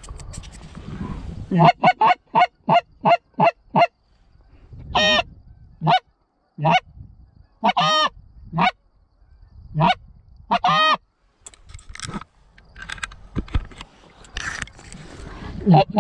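Canada geese honking: a quick run of short honks about three a second, then single longer honks every second or so, and another quick run near the end.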